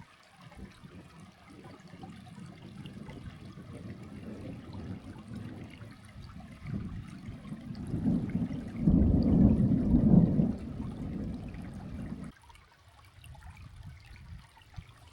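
Thunder rolling in a low rumble that builds over several seconds, is loudest about nine to ten seconds in, then cuts off abruptly.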